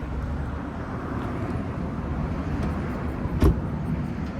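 Steady low rumble of a car and road traffic, with a single sharp knock about three and a half seconds in.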